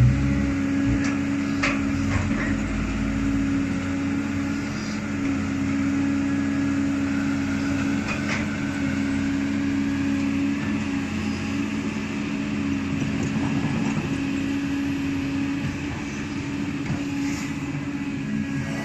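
Cat 320D crawler excavator's diesel engine running steadily under hydraulic load, a constant low hum, while the bucket works the wet earth. A few short knocks come from the bucket and boom, near the start and about eight seconds in.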